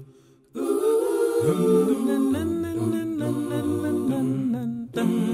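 Vocal music sung a cappella: voices hold long notes that bend from one pitch to the next. It starts about half a second in, after a short silent gap, and has a brief drop near the end.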